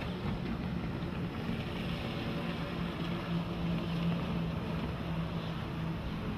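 2006 Sea-Doo Islandia 22 jet boat running at speed on its twin 155 hp Rotax 4-TEC engines: a steady engine drone over the rush of its wake and spray.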